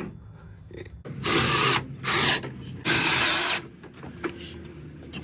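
Cordless drill driving screws, run in three short bursts of under a second each.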